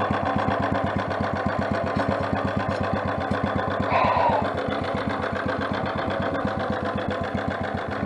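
Four-stroke motorized bicycle engine idling steadily, an even, rapid run of firing pulses; a short high squeak sounds about halfway through.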